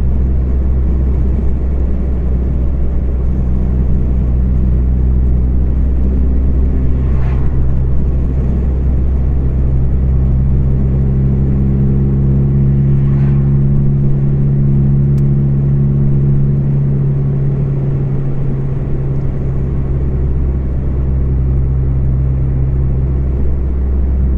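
Volvo 440 engine heard from inside the car through a broken, loose exhaust, a leak that makes it sound beefy: a low, steady drone as the car drives along, its pitch shifting slightly about halfway through.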